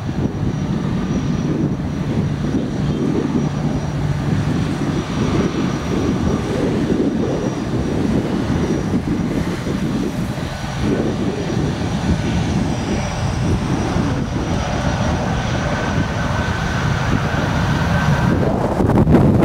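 Jet engines of a twin rear-engined airliner running on the runway, a steady low rumble. A whine comes in late and the sound grows louder toward the end as it pulls away.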